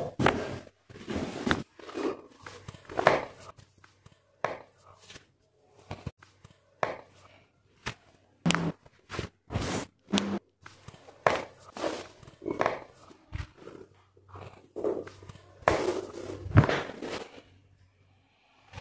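Irregular knocks, thumps and short sharp clicks from a chiropractic treatment in progress, spread unevenly with a few louder thuds in the second half.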